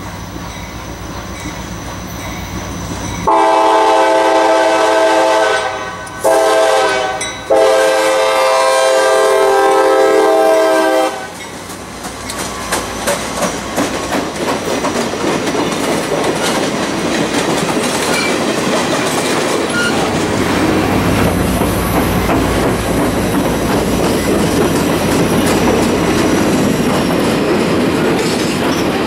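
Diesel locomotive horn sounding three blasts, long, short, then long, as a work train approaches. The train then rolls past close by, its wheels clicking over the rail joints under a steady rumble that grows louder toward the end.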